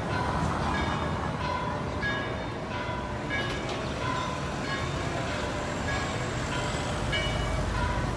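Busy street: traffic rumbling steadily under music with short, repeated bell-like notes.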